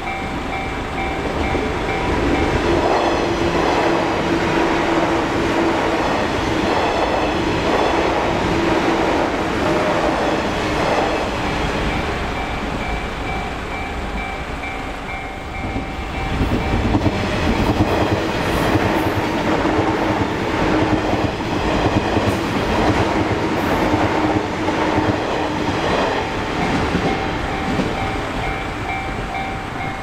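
A Japanese level-crossing alarm bell dings repeatedly and without pause while JR West 201 series electric commuter trains pass. The trains bring a loud rumble and rhythmic clatter of wheels over rail joints. The train noise eases about halfway through, then surges again as another pass follows, and the dinging stands out once more near the end.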